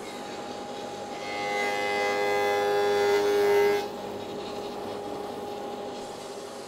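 Rikon 25-010H planer-jointer running steadily. About a second in, its cutterhead bites into a pine board being jointed along its edge, and the machine gives a louder whine for under three seconds. The whine cuts off suddenly as the board clears the cutter, and the machine runs on unloaded.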